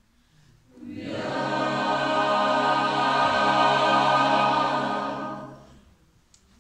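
Mixed chamber choir singing a cappella: after a brief pause, one long held chord that swells and then fades away near the end, the closing chord of the piece.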